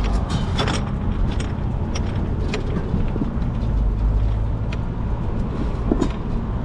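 Car driving, with a steady low engine and road rumble heard from inside the cabin and a few light clicks scattered through it.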